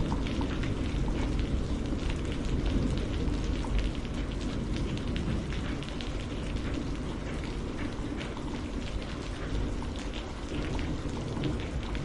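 Steady rain, with many separate drop hits over a dense wash and a low rumble underneath.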